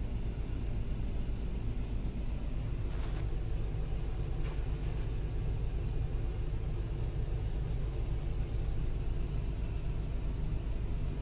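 Volvo EC350DL excavator's diesel engine idling steadily, heard as a low rumble from inside the cab, with two brief hisses about three and four and a half seconds in.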